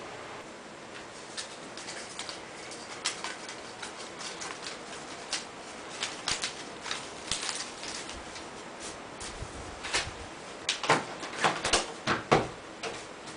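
Thin cedar strips clicking and knocking against the pegs and the loft board as they are laid in and bent around the pegs by gloved hands. Scattered taps that grow denser and louder near the end, over a faint steady hiss.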